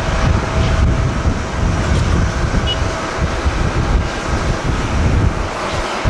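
Strong gusty wind buffeting the microphone, over the steady jet engine noise of an ANA Boeing 767 on final approach just before touchdown.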